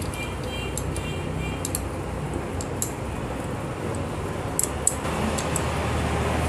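Light, scattered metallic clicks of a 10 mm spanner working the side bolts of a Honda CD100 cylinder head as they are tightened, over a steady low background hum.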